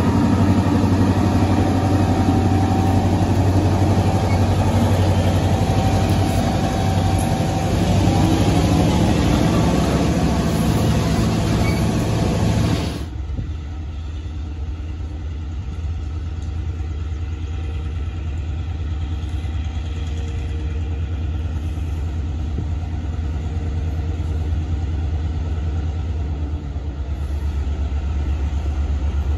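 EMD four-axle diesel locomotive's engine running close by as the unit rolls past. It cuts off sharply about 13 seconds in, giving way to the same engine heard from afar as a quieter, steady low drone that slowly grows louder as the train approaches.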